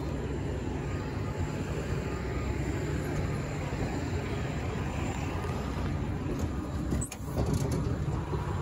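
A vehicle engine running steadily with a low rumble, briefly dipping about seven seconds in.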